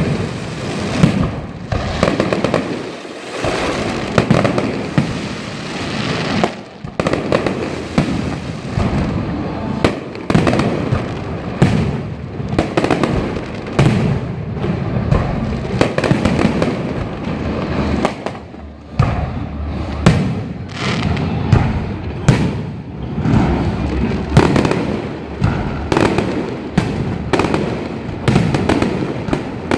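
A firecracker salute with aerial fireworks: a dense, unbroken barrage of bangs and crackling, several reports a second, with sharper loud bangs standing out throughout.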